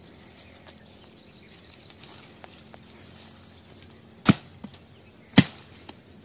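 Two sharp chops about a second apart near the end, a blade striking the base of a sapling to cut it down for a wooden stick; before them only a faint outdoor background.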